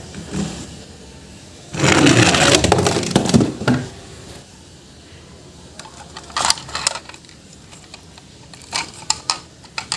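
Objects being handled, rustling and clattering: a dense, loud burst of rustling and clicks about two seconds in, then a few scattered sharp clicks later on.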